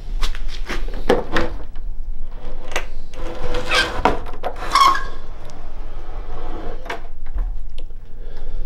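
Irregular knocks, clicks and scraping noises, with two longer scrapes about halfway through, over a steady low hum.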